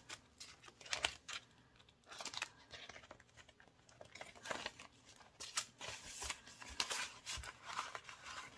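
Paper bills and envelopes rustling and crinkling as they are handled, in short, irregular crackles.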